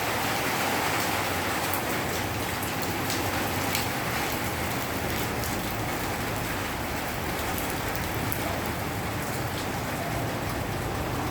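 Steady rain falling: a dense, even hiss with scattered sharper ticks of individual drops.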